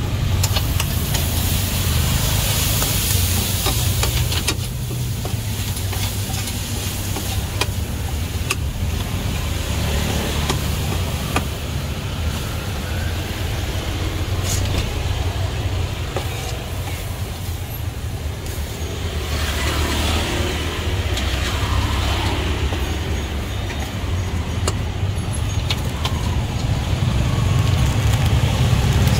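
Street traffic: vehicles running past with a steady low rumble and a changing hiss.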